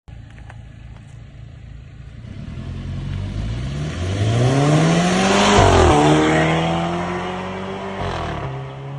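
Mercedes-Benz GLA250's turbocharged four-cylinder accelerating hard, its pitch climbing, then a sharp upshift about five and a half seconds in with a brief exhaust 'fart' as the revs drop. The revs climb again more slowly, a second upshift comes near eight seconds, and the engine settles to a steady lower drone.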